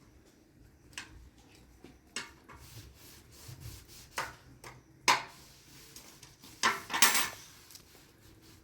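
Objects being handled: scattered clicks and knocks with some rubbing and scraping. The loudest knocks come about five seconds in and about seven seconds in.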